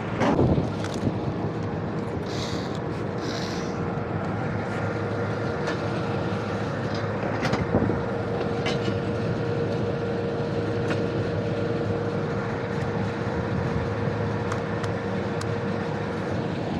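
Rooftop HVAC equipment running: a steady mechanical hum with a constant tone over a rumbling noise. A few short knocks come near the start and about halfway through.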